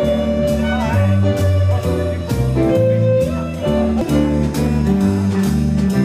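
Live small band playing dance music: a violin carries the melody over a bass line, chordal accompaniment and a steady beat.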